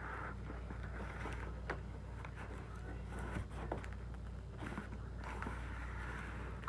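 Faint scraping and rustling of hands working at the taped side seams of a cardboard box, with a few small clicks, over a steady low hum.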